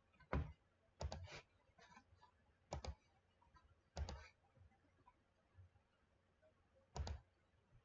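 Computer mouse clicking: faint, short sharp clicks at irregular intervals, about six in all, some in quick pairs, as menu items and drawing points are picked.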